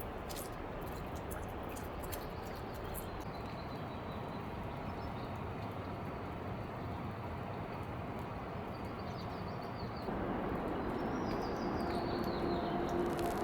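Steady outdoor ambience, an even hiss of background noise, with faint bird chirps now and then; the background steps up louder about ten seconds in.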